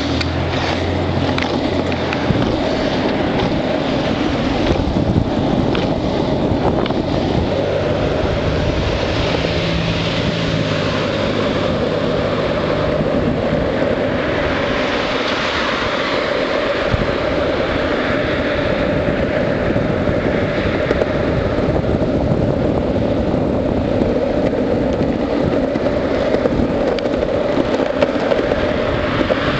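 Longboard's urethane wheels rolling fast down an asphalt road: a steady, unbroken rolling rumble with some wind on the microphone.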